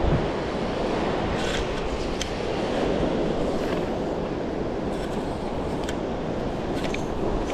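Steady wash of surf and wind, with a few faint short scrapes and clicks as a metal lugworm bait pump is pushed into stony wet sand.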